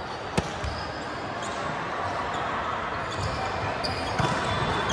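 A volleyball smacked by a player's hand on the serve: one sharp hit about half a second in, echoing in a large gym over background chatter and players' calls. A few fainter ball hits follow near the end as the rally goes on.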